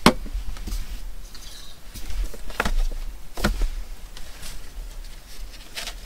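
Objects being handled on a wooden desk: a sharp knock right at the start, then a few lighter knocks and taps with soft handling noise as things are moved about and a hardcover book is opened.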